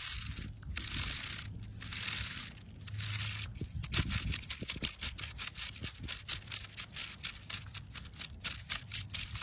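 Rapid dry crackling and rustling, denser in the first few seconds, over a steady low rumble of wind on the microphone.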